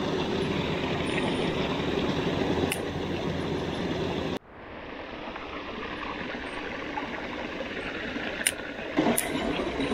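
Small spring-fed creek running over rocks, a steady rushing noise that drops abruptly to a quieter stretch of the same flow about four seconds in. A few sharp clicks near the end.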